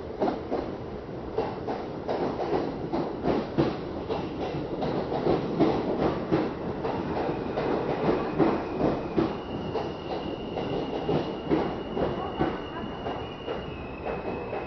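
New York City subway train heard from inside the car, its wheels clicking over rail joints as it rolls slowly into a station. A thin, steady, high-pitched whine joins about seven seconds in and shifts pitch slightly twice.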